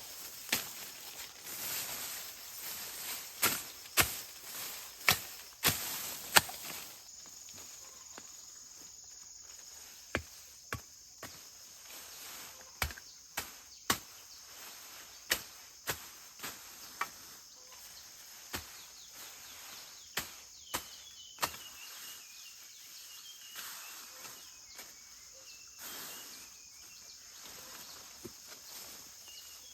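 Insects drone steadily on one high note, with sharp knocks or cracks every second or so and a few bird chirps later on. For the first several seconds a hissing rustle sits over it, before the insect drone settles in.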